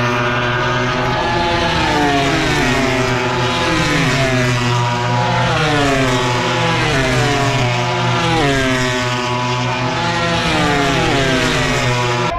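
Several racing motorcycles running on the circuit, their overlapping engine notes falling and climbing again and again as they shift and pass.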